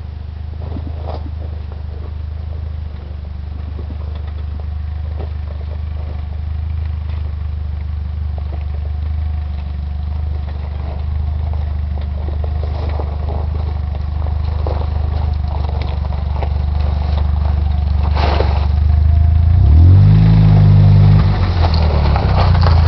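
Jeep Wrangler's engine running low and steady as it crawls down a loose rocky slope, growing louder as it nears, with rocks crunching and clattering under the tyres. About twenty seconds in, the engine note briefly rises and falls.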